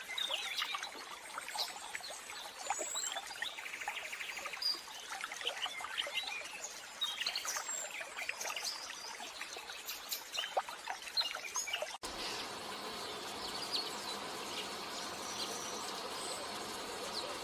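Outdoor ambience of many short bird chirps and insect calls over a faint hiss, with a brief buzzing trill about four seconds in. About twelve seconds in the sound cuts abruptly to a steadier hiss with a few faint chirps.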